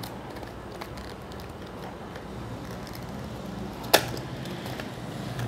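Hands opening a small cardboard cosmetics box, with faint rustling and one sharp snap about four seconds in, over a low steady hum.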